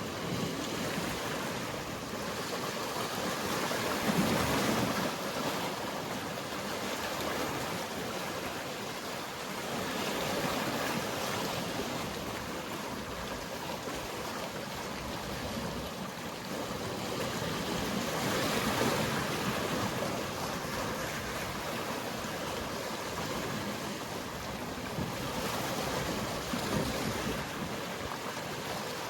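Mediterranean sea waves washing against the shore, a steady wash of water noise that swells with each wave every six to eight seconds.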